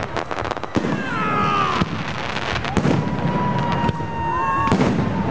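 New Year fireworks going off: rapid bangs and crackling, with high whistling tones that hold steady or fall in pitch over them.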